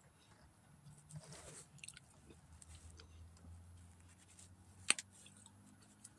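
Faint chewing and mouth sounds close to the microphone, with small clicks and one sharp click about five seconds in.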